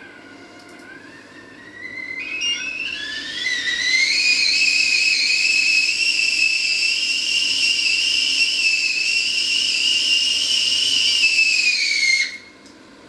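Stovetop whistling kettle coming to the boil: its whistle rises in pitch and grows loud over the first few seconds, holds steady, then cuts off suddenly about twelve seconds in as the kettle is lifted off the hob.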